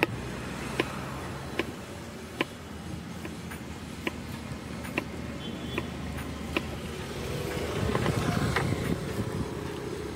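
Knife striking a cutting board at a slow, regular pace, a sharp tap about every second, as a cucumber is sliced. Steady road traffic runs underneath and swells louder around eight seconds in.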